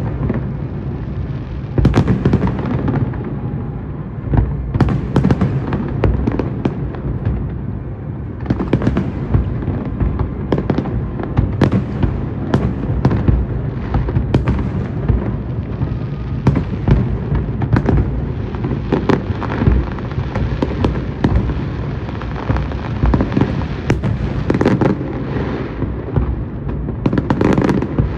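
Fireworks display: a dense, continuous barrage of bangs and crackles over a low rumble, many shots a second without a break.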